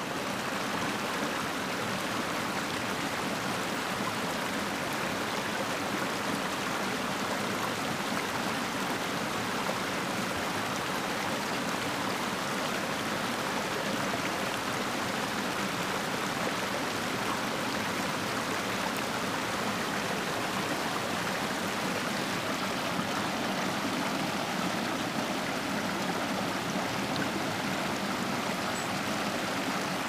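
Creek water rushing steadily over a rock ledge and small cascades.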